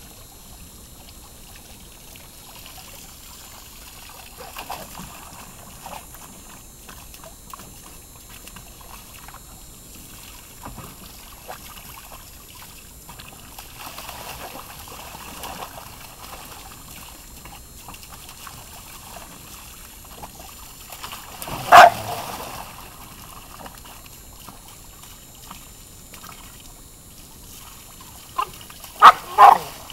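Garden hose water pouring and splashing into a plastic kiddie pool as a dog stands in it snapping at the stream. The dog barks once about two-thirds of the way through and three times in quick succession near the end.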